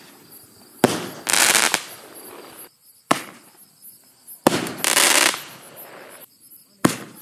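Consumer fireworks firing: four sharp launch bangs, spaced irregularly about one to two seconds apart. After two of them comes about a second of loud hissing crackle as the shot bursts into crackling stars.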